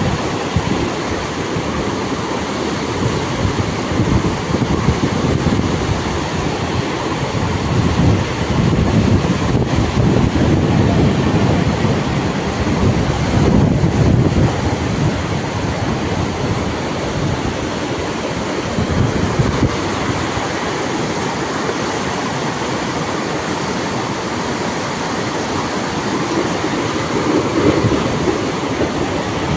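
A rain-swollen mountain river in spate: fast, heavy water making a loud, steady roar that swells and eases a little at times.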